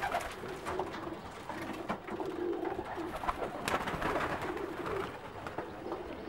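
English tippler pigeons cooing: low, repeated coos, with a few sharp taps and scuffles among them.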